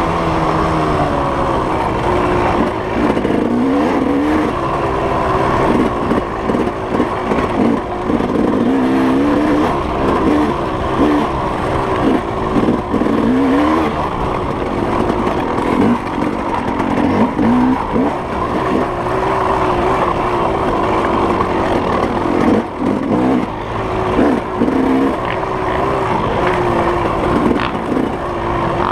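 Off-road motorcycle engine being ridden hard, its revs rising and falling every second or two as the rider throttles on and off.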